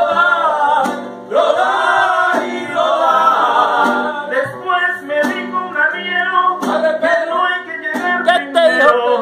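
Mariachi band playing a ranchera: a man sings in Spanish over strummed guitars, with a steady strumming beat from about the middle on.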